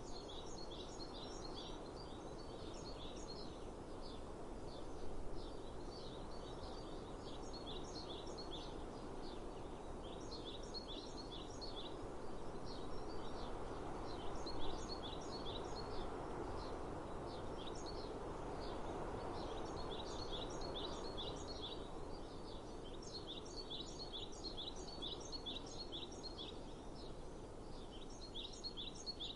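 Small songbirds chirping, repeating short phrases of quick high notes again and again, over a steady outdoor hiss of breeze.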